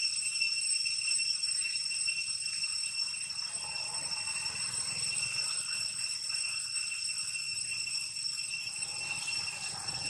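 Steady high-pitched insect drone: one ringing tone with overtones, unchanging throughout, over a faint low rumble.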